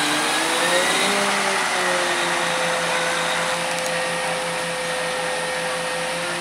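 Hydraulic whine of a truck-mounted knuckle-boom crane as the boom swings, over the delivery truck's running engine. The pitch rises and falls about a second in, then holds steady.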